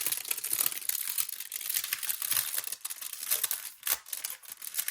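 Crinkly wrapping being handled and pulled off a planner: a dense, continuous crackling of many small crinkles.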